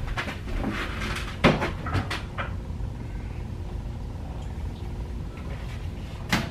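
A few knocks and clunks as a person crosses a carpeted room and opens a mini fridge. The loudest knock comes about a second and a half in and another sharp one near the end, over a low steady hum.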